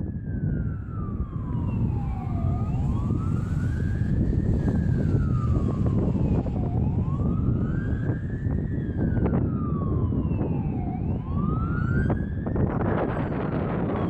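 Emergency vehicle siren wailing, its pitch rising and falling slowly about every four seconds, over the steady low rumble of a car on the road. A rush of noise swells near the end.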